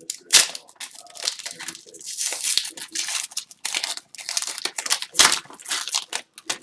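Foil wrappers of hockey card packs being torn open and crinkled by hand, a busy run of rustling, tearing and crackling.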